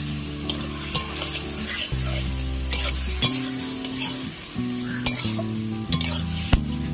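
Pieces of ou (elephant apple) in masala sizzling as they fry in a metal kadai, stirred with a spatula that scrapes and clicks sharply against the pan every second or so.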